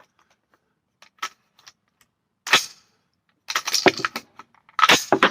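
Rifle gunshots: a single sharp shot about two and a half seconds in, then two quick clusters of overlapping shots near the middle and end.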